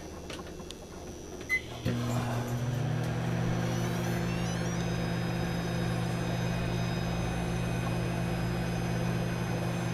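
Sanyo microwave oven starting: a short beep about a second and a half in, then the oven comes on and runs with a steady electrical hum. Faint high tones step in pitch a few seconds after it starts.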